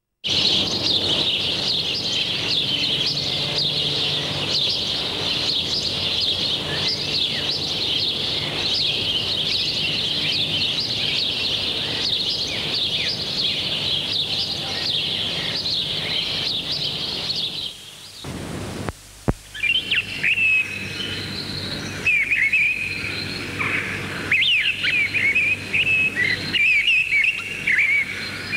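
Many birds chirping in a dense, continuous chorus. About two-thirds of the way through it briefly drops away, then sparser, slightly lower chirps take over.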